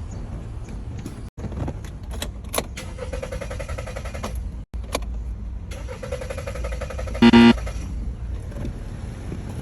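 Car sounds: a low rumble with a few sharp clicks, and a short loud horn honk about seven seconds in.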